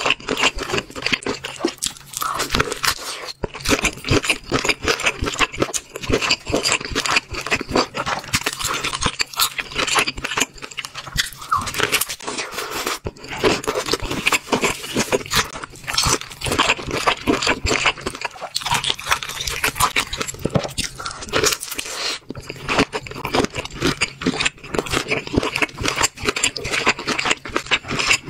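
Close-miked eating sounds: crunching, biting and wet chewing of spicy sauced seafood such as crab, shrimp and octopus, in a dense run of clicks and crackles.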